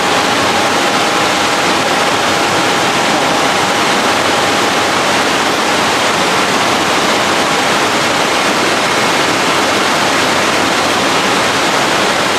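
Loud, steady rushing of water in an indoor koi tank, from the pumped water flow and aeration, with a faint steady whine running through it.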